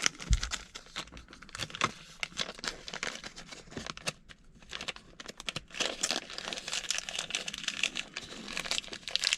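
Plastic packaging crinkling and rustling as it is handled, with irregular small clicks and a thump near the start.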